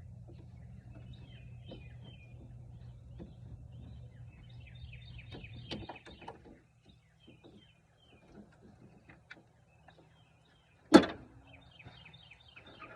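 Small metallic clicks of hand tools working the battery terminal, and one sharp loud clank about eleven seconds in, as the battery post is disconnected. Birds chirp throughout, and a steady low hum runs through the first half, stopping about six seconds in.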